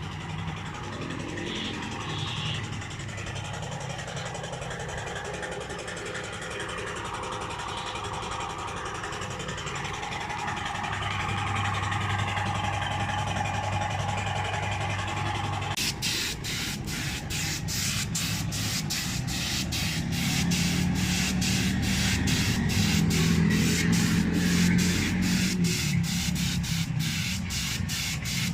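Spray-painting: a compressed-air paint spray gun hissing in rapid, even pulses, about three a second, starting about halfway through, over the steady hum of a running motor.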